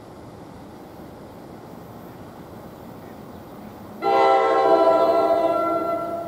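Steady low background noise, then about four seconds in an NJ Transit commuter train's air horn sounds one long blast of about two seconds, a chord of several steady tones, fading near the end.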